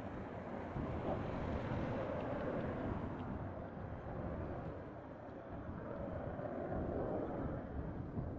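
Jet noise from BAE Hawk T1 aircraft's Adour turbofan engines, a steady distant rumble that eases off midway and swells again as the jets come round.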